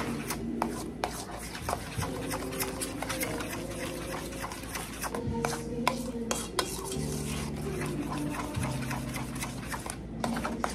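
Wire whisk stirring a thick, creamy sauce in a stainless steel bowl: a run of quick, irregular clicks and scrapes of the wires against the metal.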